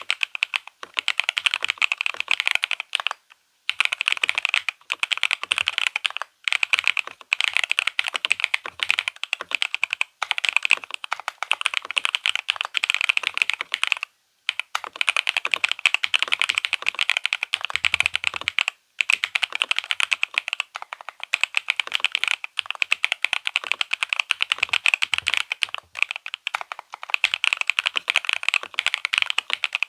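FEKER IK75 V3 gasket-mount mechanical keyboard with lightly spray-lubricated Akko CS Silver linear switches, a polycarbonate plate and Cherry-profile keycaps, typed on fast and steadily: a dense run of high-pitched key clacks, broken by a few brief pauses.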